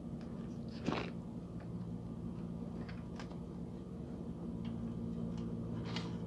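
A steady low hum with scattered faint ticks and clicks, and one short louder sound about a second in.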